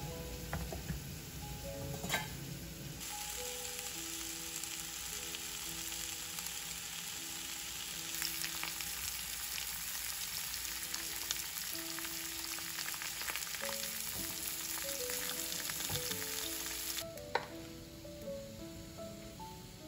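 Fish-cake strips and sliced onion sizzling in hot garlic oil in a nonstick frying pan. The sizzle starts suddenly about three seconds in and cuts off near the end with a sharp knock. Background music plays underneath.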